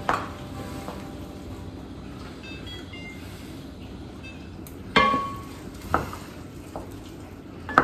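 Kitchenware knocks and clinks from egg noodles being stirred in a stainless steel pot, over a steady low background. A few sharp clinks stand out: one at the start, the loudest about five seconds in with a brief ring, another about a second later and one near the end.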